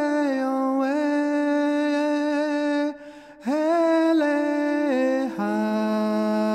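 Song with a voice holding long, wordless sung notes in two phrases, broken by a brief pause about three seconds in, with a second held note in harmony under it near the end.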